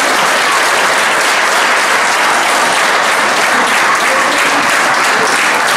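Loud, steady audience applause.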